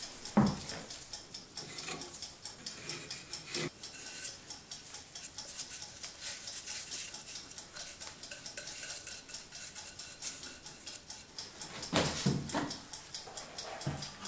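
Glue-up handling sounds on a workbench: light clicks and scrapes of wooden parts and a glue stick against a cup and dowel ends, with louder wooden knocks about half a second in, near four seconds, and around twelve seconds as pieces are set down and fitted together.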